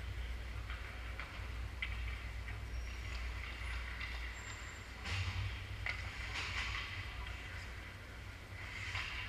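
Ice hockey play on an indoor rink: skate blades scraping on the ice and scattered sharp clacks of sticks and puck, over a steady low hum. The scraping swells a few times, loudest a little past halfway and again near the end.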